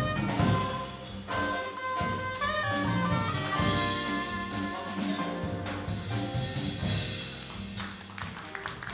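Live jazz band playing: soprano saxophone over piano, double bass and drums, with a trombone.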